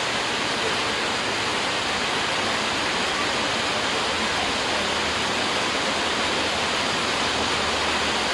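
Steady rush of falling water, even and unbroken throughout.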